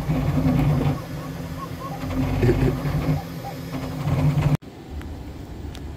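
Bambu Lab X1 Carbon 3D printer running a print: its motors and moving toolhead make a steady mechanical hum with short whirring chirps. The sound cuts off abruptly about four and a half seconds in, leaving a quieter steady background noise.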